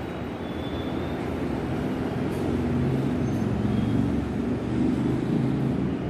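A low, steady rumble that grows louder through the middle and eases off near the end.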